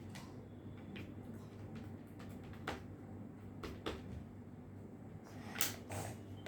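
A few light clicks and taps from handling small objects, the loudest pair near the end, over a low steady hum.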